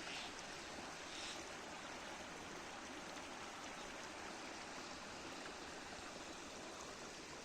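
A faint, steady rushing noise, like running water, with two slight brighter swells near the start.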